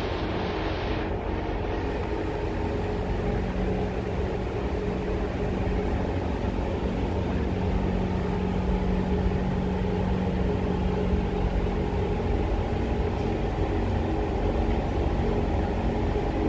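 Steady hum of a Siemens C651 metro train's on-board equipment while it stands at a station with its doors open, with a low steady tone through the middle. A short hiss fades out in the first second.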